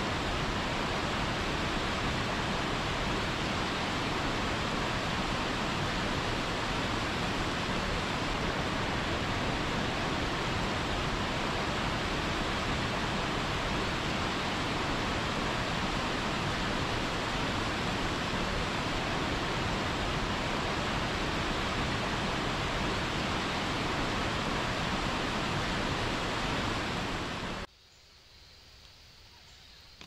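Waterfall pouring steadily into a rocky pool, a dense even rush of water. Near the end it cuts off abruptly, leaving a much quieter outdoor background with a faint high hum like insects.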